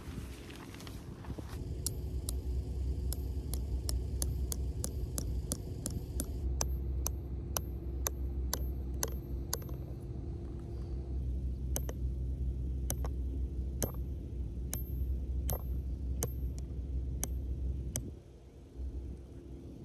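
A wooden-handled hammer with a metal head striking a steel tent peg into the ground, a long series of sharp metallic knocks in quick runs of several a second, some with a faint ring after them. A steady low rumble runs underneath and drops away near the end.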